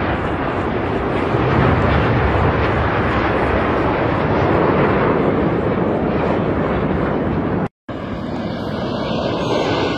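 Jet aircraft flying over in formation: steady, loud rushing jet noise. Near the end it cuts out for a moment, then a similar steady noise carries on.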